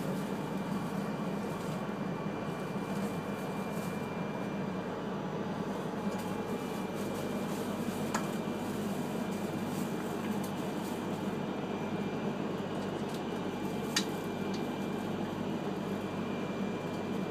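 Steady hum of ventilation and on-board equipment inside an E3-series Shinkansen passenger car while the train stands at a station platform. Two sharp clicks come about eight seconds in and about fourteen seconds in, the second the louder.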